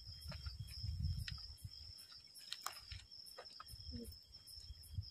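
Crickets chirping faintly and steadily: a constant high trill with regular quick pulses above it. Low rumbling noise comes and goes underneath during the first two seconds and again around four seconds in.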